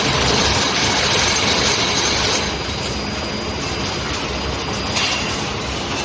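Loud, steady metallic rumble and clatter of steel-ball production-line machinery, from the motor-driven steel bar feeding conveyor. The high hiss eases a little about two seconds in.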